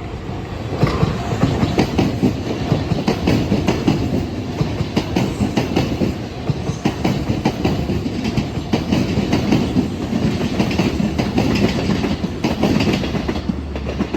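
Kintetsu Minami Osaka Line electric train passing over the level crossing, its wheels clacking quickly and continuously over the rail joints and crossing.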